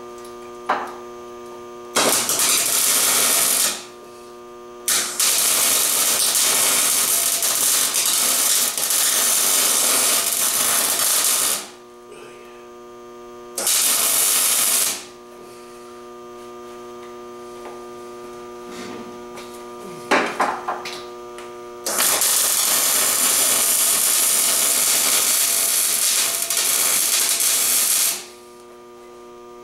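Angle grinder cutting metal in four bursts of harsh grinding noise; two are short and two last about six to seven seconds. A steady motor hum carries on in the gaps between cuts.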